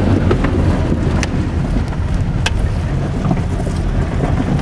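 Volkswagen Jetta driving on a rough, muddy dirt road, heard from inside the cabin: a steady low rumble of engine and tyres with a few sharp knocks, about a second in and again near the middle, as the car jolts over the ruts.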